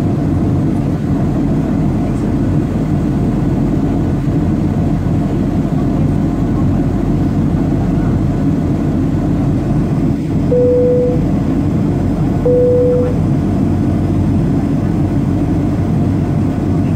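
Steady low rumble of an airliner cabin at cruising altitude: jet engine and airflow noise. A little past the middle, two short tones at the same pitch sound about two seconds apart.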